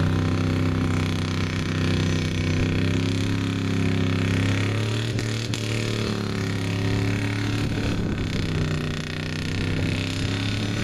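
Pickup truck engine held at high revs as the truck churns through deep mud with its wheels spinning. The revs waver and dip about halfway through, then steady again.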